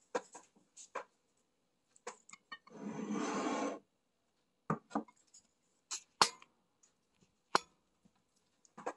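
Chopsticks clinking and knocking against a ceramic bowl while the bowl is handled and the black-bean-sauce noodles are mixed: a scattered run of short sharp clicks. Near three seconds in there is about a second of rustling, scraping noise.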